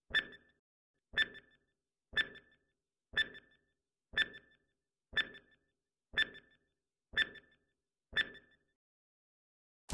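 Countdown sound effect: a short electronic ping-like beep with a soft low thump under it, once a second, nine times. A loud noisy blast begins right at the end.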